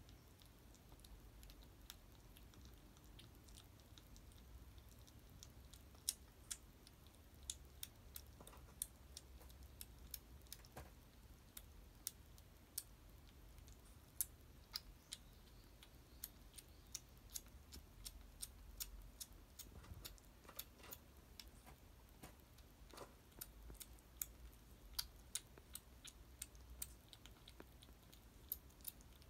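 Kittens eating cat food from a plastic tray: many small, irregular crunches and clicks of chewing over a near-silent room.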